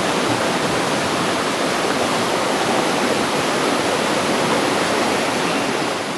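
Rushing river water: a steady, loud flow noise.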